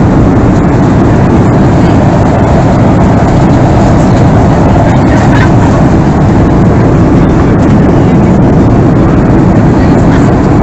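Steady cabin noise inside a Boeing 737-300 airliner: an even, unbroken rumble of the jet engines and airflow, heaviest in the low range.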